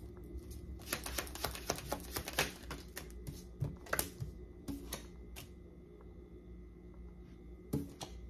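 Tarot cards being shuffled by hand: a quick run of rapid clicking from about a second in, lasting a second and a half, then scattered single clicks and flicks as the cards are handled.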